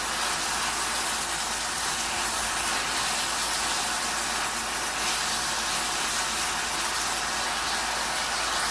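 Marinated bulgogi beef sizzling steadily in hot oil in a wok as it is stir-fried on high heat.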